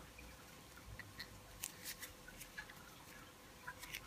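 Faint rustling and light clicks of gloved hands working a new rubber boot onto a motorcycle brake caliper part.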